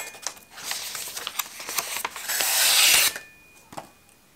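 A freshly sharpened Shun cleaver slicing through a sheet of printer paper in a paper test of the repaired edge: a rasping, hissing cut that builds to its loudest near the end of the stroke and stops abruptly about three seconds in.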